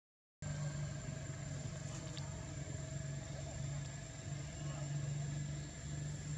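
Steady low engine hum, like a motor vehicle idling, starting after a split second of silence.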